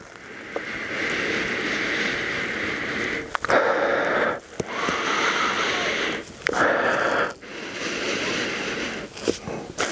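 A man breathing in deeply through his nose with his face pressed into an old leather-bound book, smelling it: a run of long, breathy sniffs, the first about three seconds long and the rest shorter, with brief pauses between.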